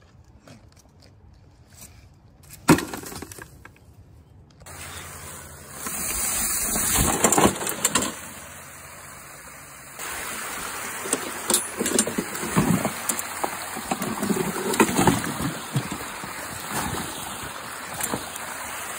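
One sharp impact about three seconds in. From about five seconds on, a steady rush of running creek water, with irregular knocks and splashes as a push mower is shoved over the bank into the creek.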